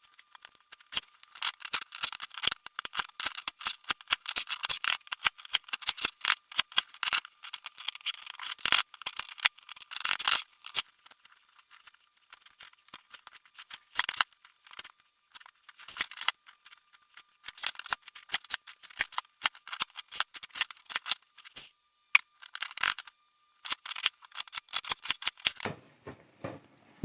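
Plastic pieces of a MoYu 21x21 cube clicking and rattling as its layers are turned, in long runs of rapid clicks for about the first ten seconds, then in shorter bursts with pauses between. The layers are catching as they turn, so each turn is made carefully.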